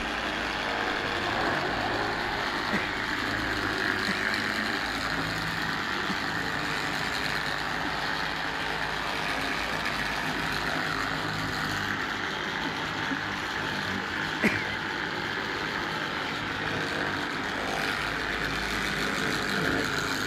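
Electric angle grinder with a polishing pad running steadily at its one very high speed against car paintwork: a constant high whine over a rushing noise.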